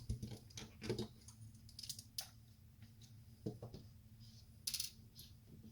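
A few faint, scattered clicks of LEGO plastic pieces being handled and pressed onto a plate, over a faint steady low hum.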